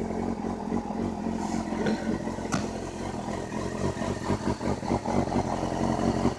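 Kawasaki sport motorcycle engine idling steadily while still cold and warming up, with a single sharp click about two and a half seconds in.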